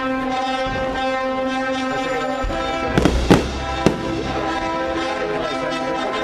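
Fireworks display: an orchestral score playing over loudspeakers, with a few sharp firework bangs between about three and four seconds in.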